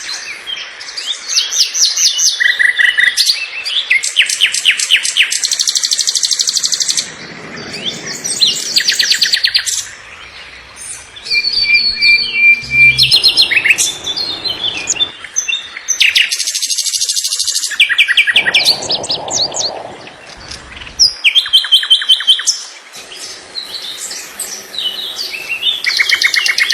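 Songbirds singing: fast trills and rapidly repeated high chirps in varied phrases, with short pauses between them.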